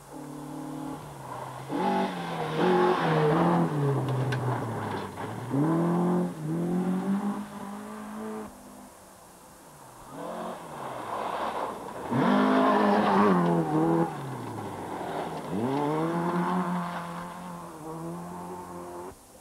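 Rally car engines revving hard in two separate passes, a short lull between them. In each the pitch climbs and drops again and again as the driver shifts gears and lifts off.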